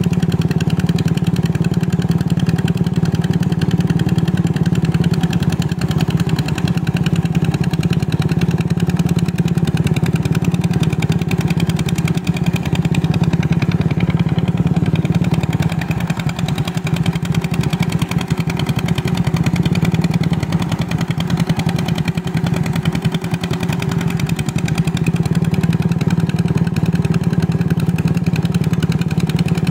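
Two-wheel hand tractor's single-cylinder engine running steadily at an even speed while it works a flooded paddy.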